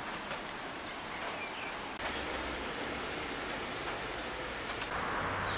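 Steady rain falling, with a few sharp drops tapping now and then. The sound of the rain changes slightly about two seconds in and again near the end.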